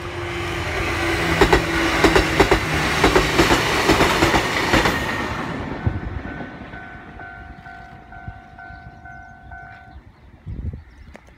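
Kotoden train led by car 1073 passing close by, its wheels clacking rhythmically over the rail joints, loudest in the first five seconds and then fading as it moves away. A pulsing ringing tone continues behind it and stops about ten seconds in.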